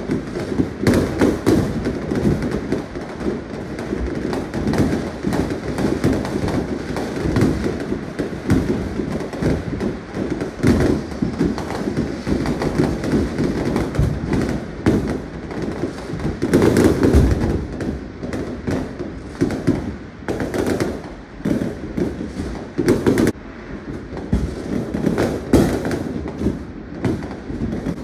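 Many fireworks going off at once: a constant barrage of overlapping bangs and crackling from aerial shells bursting, with a louder flurry of bangs about seventeen seconds in.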